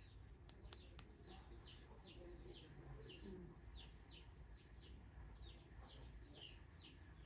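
Faint small bird chirping over near silence: short falling chirps, about three a second, with two sharp clicks in the first second.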